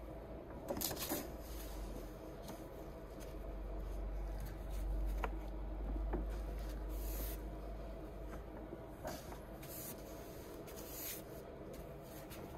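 Pages of a large old dictionary being turned by a gloved hand: several dry paper rustles and flips as the leaves are leafed through, over a low steady hum.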